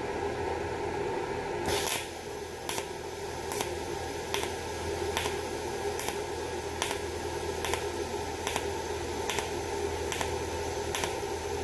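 Andeli inverter TIG welder in cold pulse (spot) mode, fusing stainless steel exhaust pipe without filler rod. The arc starts about two seconds in and fires in short, evenly spaced zaps, a little more than one a second, over a steady hum.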